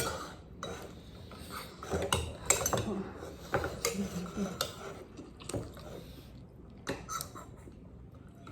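Eating utensils clinking against a dish in a scatter of separate sharp clicks during a meal.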